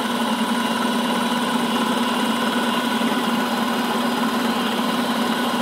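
Vertical milling machine running under power feed, its end mill cutting a slot in a metal bar. It makes a steady, even drone that holds one pitch throughout.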